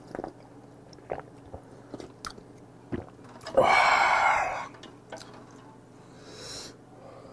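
A person sipping hot broth from a ladle, with small mouth clicks and slurps. About three and a half seconds in comes one loud, breathy 'ahh' of satisfaction lasting about a second, and near the end a short, fainter slurp.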